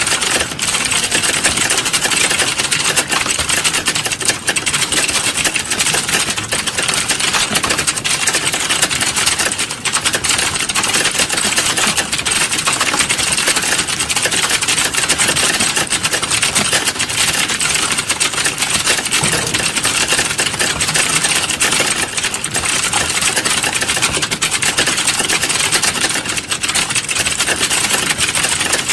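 Fast, continuous typing on a computer keyboard: a dense, unbroken clatter of key clicks.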